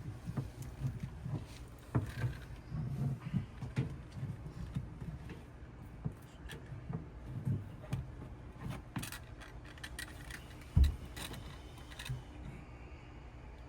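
Scattered small metallic clicks, rattles and knocks from tools and hardware being handled at a wall outlet, with one heavier thump late on.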